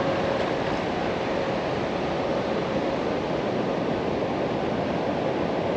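Steady rushing roar of water pouring over a big weir on the River Thames, running loud with the river up after rain.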